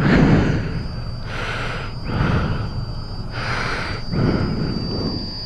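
A person's breathing close to a phone microphone: a noisy swell about once a second, over a low rumble and a faint steady high whine.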